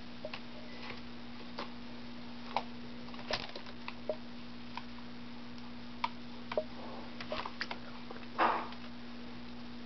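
Pet sparrow pecking at and shaking a noodle: irregular sharp taps and clicks, with one longer, louder scuffle about eight and a half seconds in.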